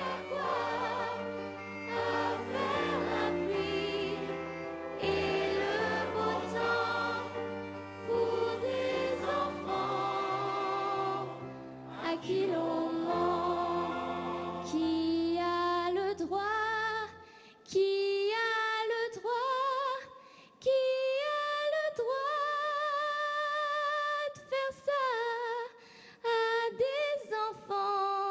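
A large choir and orchestra perform with a young girl's solo voice over them. About 17 seconds in, the instruments and choir fall away and the 13-year-old girl sings on alone in short phrases, her voice wavering with vibrato.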